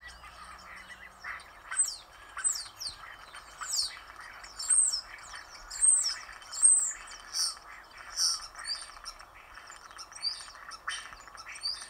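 European starlings calling: a string of short, high whistles, some sliding down and some arched, one or two a second, over a faint steady hiss.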